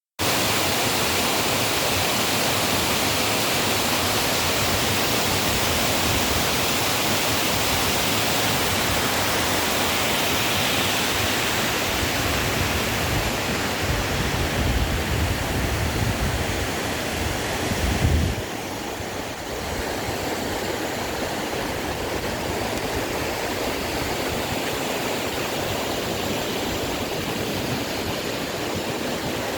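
Waterfall's rushing water, a steady dense hiss. About halfway through, a low rumble rises under it, then the rush drops a little and carries on steadily.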